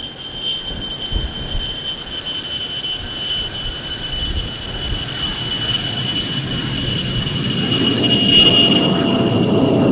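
Belgian Air Force F-16A's Pratt & Whitney F100 turbofan whining as the jet rolls along the runway: several high steady tones that slowly fall in pitch, with a low rumble that grows louder near the end as it passes.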